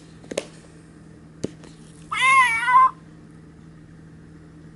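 A cat meows once, a wavering call just under a second long, after two light clicks.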